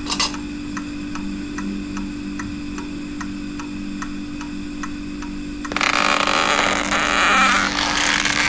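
Regular clock-like ticking, about three ticks a second, over a steady low hum. About six seconds in, a louder hiss takes over.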